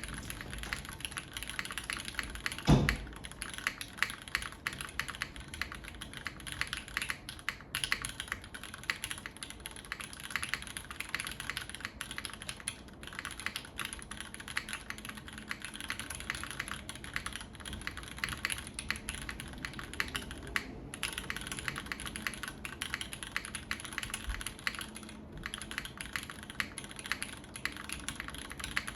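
Steady, fast typing on a UTD 360 tenkeyless mechanical keyboard with linear Cherry MX Black switches on a full aluminium plate and GMK Taiga keycaps. There is one heavier thump about three seconds in.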